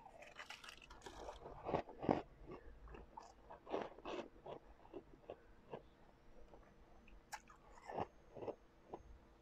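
A person biting and chewing refrozen blended ice in irregular crunches, the loudest about two seconds in and again around four and eight seconds.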